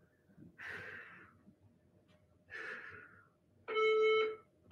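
Two heavy exhales while holding a plank, then near the end one loud half-second electronic beep from an interval timer, marking the end of the work interval.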